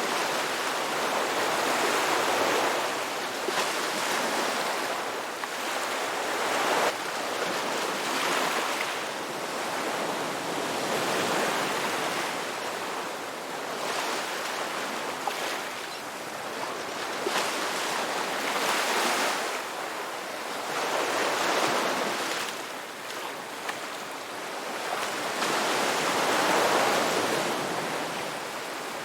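Ocean surf: a continuous rushing wash of waves that swells and eases every four to five seconds as successive waves come in.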